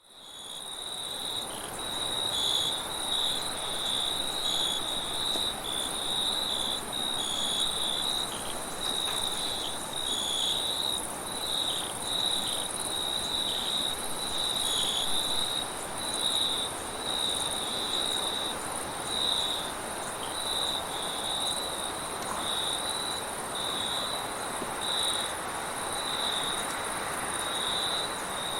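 Crickets chirping in a steady, pulsing chorus, with a second, higher-pitched insect buzz above it and a soft, even hiss of wind beneath. The sound fades in at the very start.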